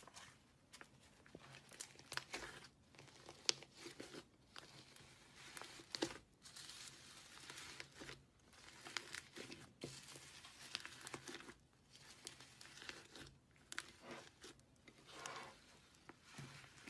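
Slime being squeezed and stretched by hand, with irregular crackling, popping and tearing sounds.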